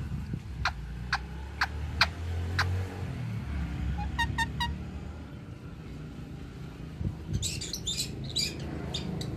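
Ringneck parrot calling: a run of sharp clicks in the first few seconds, three short pitched chirps about halfway, then a burst of rough squawks near the end. A steady low rumble runs underneath.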